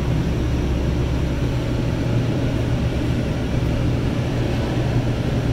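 Steady low vehicle rumble with an even hiss above it, unbroken and without pitch changes.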